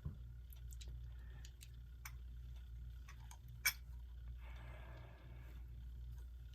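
Small, irregularly spaced clicks and taps from handling a quartz clock movement as its second hand is pulled off, with one sharper click a little past the middle and a brief scraping rustle just after it. A steady low hum runs underneath.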